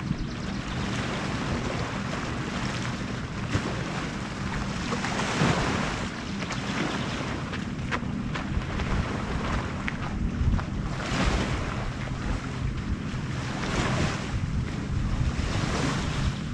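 Wind buffeting the microphone: a steady low rumble with rushing gusts that swell and fade a few times.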